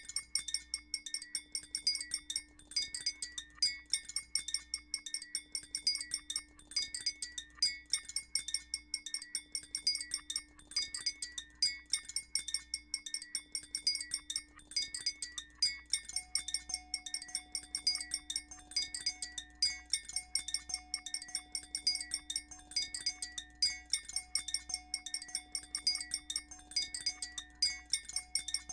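Electronic music from a Max/MSP patch: rapid, bell-like granular-synthesis grains over a steady low drone, with live-looped layers repeating about every four seconds. A higher held tone joins about halfway through, also repeating in four-second loops.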